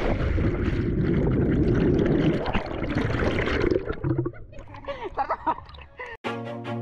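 A splash into the lake, then heavy rushing and bubbling water around a camera plunging under the surface. The churning eases after about four seconds, and a music track starts near the end.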